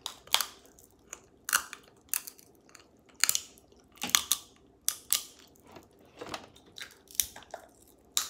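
Someone eating crab legs up close: chewing and biting, with irregular sharp clicks and cracks as the shell is bitten and broken.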